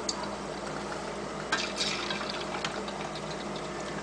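Chicken thigh pieces deep-frying in a pot of hot oil, sizzling steadily with scattered crackles and a few louder pops about a second and a half in.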